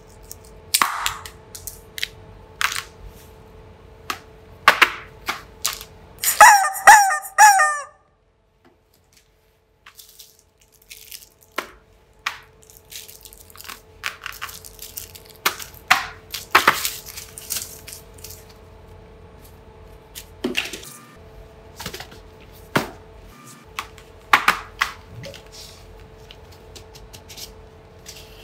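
Toys and wrapped snacks handled and set down on a paper sheet: a string of short clicks, taps and crinkles, with a short wavering pitched sound about six seconds in and a brief pause after it.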